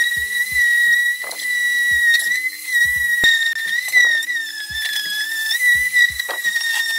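Dual-action (DA) sander running against welded steel repair panels with a steady high whine, its pitch wavering slightly as it is pressed and moved. It is smoothing the weld repairs with a coarse disc to take out the scratch lines.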